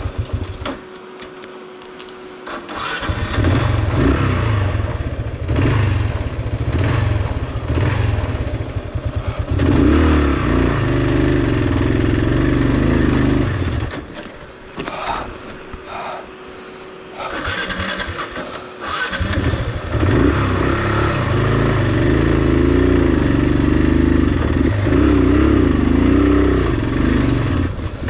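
Kawasaki KLR650's single-cylinder four-stroke engine labouring up a steep, rocky dirt trail, the note rising and falling with the throttle. Twice the engine drops away for a few seconds, once near the start and once about halfway through, before pulling hard again.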